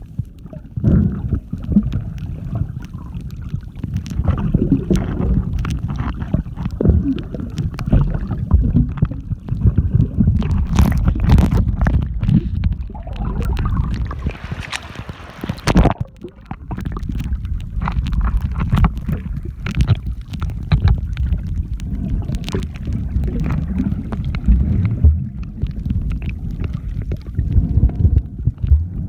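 Muffled underwater rumble of water moving around a submerged camera, with scattered clicks and bubbling throughout. A brief, brighter hissing rush comes around the middle.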